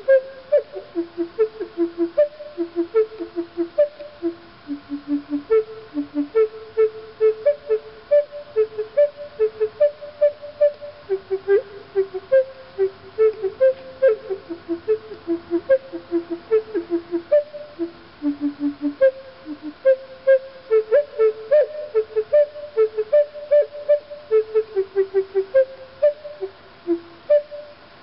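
Native American flute played in a fast run of short, separate notes that wander up and down through a low-to-middle range, a few notes a second.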